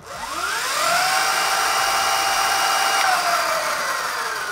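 Electric dirt bike's motor and chain drive, run by an EBMX X-9000 controller, free-spinning the lifted rear wheel under throttle. A whine that rises in pitch over the first second, holds steady, then falls as the wheel slows, over a rushing hiss.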